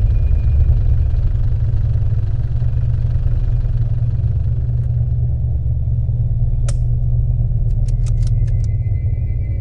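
A steady low rumble, with one sharp click about two-thirds of the way in and a quick run of about six clicks soon after.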